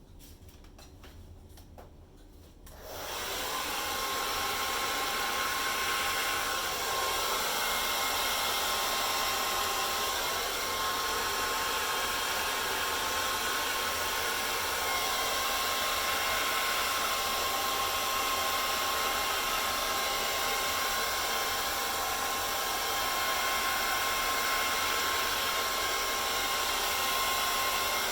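Hair dryer switched on about three seconds in, then running steadily with a thin, steady tone over its rush of air.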